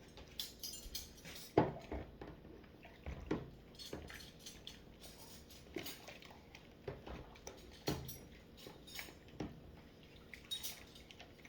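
Dishes and cutlery clinking and knocking together as they are hand-washed, with some dripping and splashing water. The knocks come at an irregular pace; the loudest is about one and a half seconds in, with another strong one near eight seconds.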